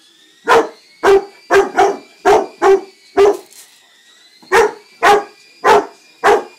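A Rottweiler barks about eleven times in quick succession, with a pause of about a second midway. Underneath is the faint steady whine of a small toy helicopter's motors.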